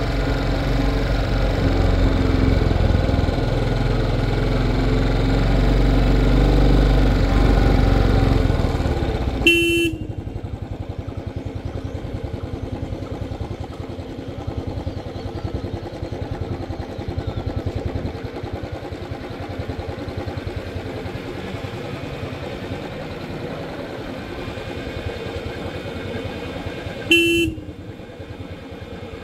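Royal Enfield Classic 350's single-cylinder engine running on a mountain descent, louder for about the first nine seconds, then quieter with a steady, even low-rev beat. The motorcycle's horn toots briefly twice, about ten seconds in and near the end.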